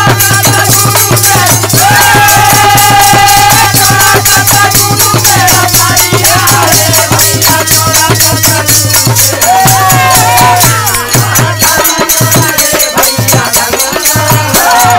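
Bhojpuri kajari folk ensemble playing loudly: hand-held jingle rings shaken in a fast, even rhythm over a dholak beat, with held, wavering sung or harmonium melody lines.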